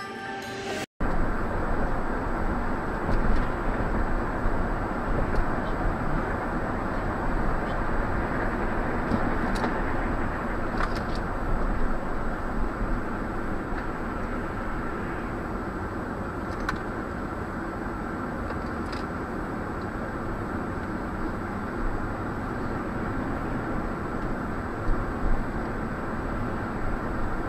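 A car's dashcam recording of it driving along a highway: a steady rush of road and tyre noise with the engine underneath, with a faint high whine and a few faint clicks. It begins about a second in, after a brief dropout.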